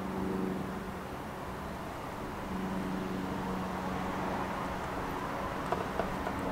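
Steady distant traffic hum with a low droning engine-like tone. A few faint footsteps on the platform come near the end.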